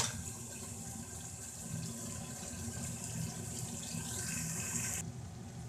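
Aloo matar curry sizzling in oil in a steel pot as it is fried and stirred with a wooden spoon, at the bhuna stage where the oil has separated from the masala. A steady hiss runs over a low hum, with a single knock right at the start, and the hiss cuts off sharply near the end.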